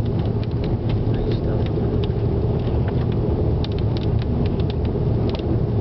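Thunderstorm wind and rain: a steady low rumble with scattered sharp ticks of raindrops.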